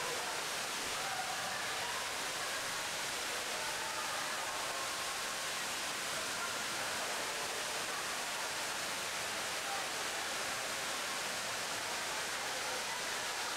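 Steady hiss-like background noise, with faint, indistinct voices murmuring underneath.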